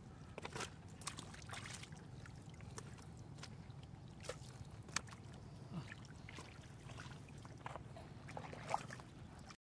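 Scattered small splashes, drips and trickles of water over a steady low hum, with the sharpest splashes about five seconds in and near the end.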